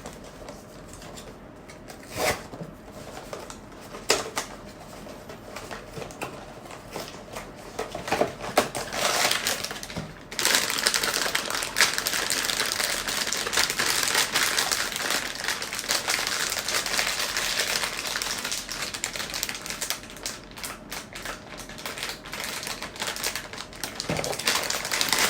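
Blind-box packaging being handled by hand. For about ten seconds there are scattered sharp clicks and taps. Then comes steady dense crinkling and rustling for about ten seconds, and then clicks again near the end.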